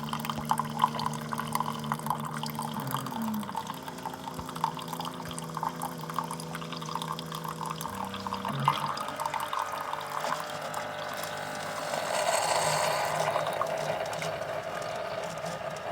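Keurig coffee maker brewing a K-cup: the pump hums steadily while coffee streams and drips into the cup. The hum shifts pitch twice, and a louder hiss takes over for the last few seconds.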